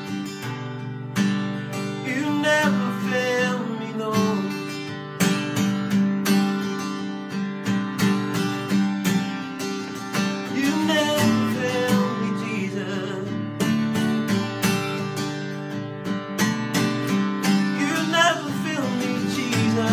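Acoustic guitar strummed steadily, with a man's voice singing the melody over it at a few points.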